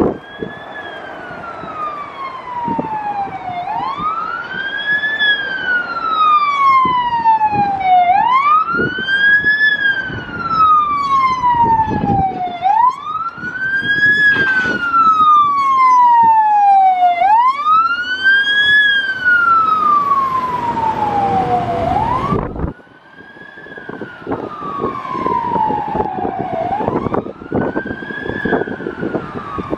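Wailing siren of a Scania G480 heavy rescue fire truck on an emergency run: each cycle rises quickly and falls slowly, about every four and a half seconds. About two-thirds of the way through it drops suddenly in loudness and goes on fainter and more distant.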